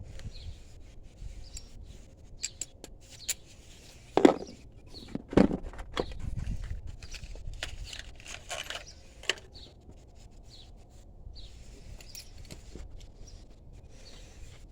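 Scattered clicks and clinks of hand tools and parts being handled during a spark plug change, with two louder knocks about four and five and a half seconds in.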